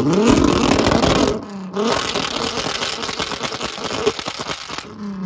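Drag-racing car engine at full throttle, revs climbing hard, with a short dip about a second and a half in before it pulls on. The sound cuts off suddenly near the end.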